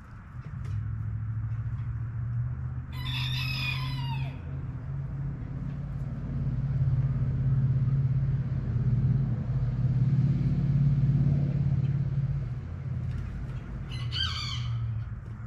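A steady low engine hum that swells and eases through the middle, with a rooster crowing twice over it, once about three seconds in and again briefly near the end.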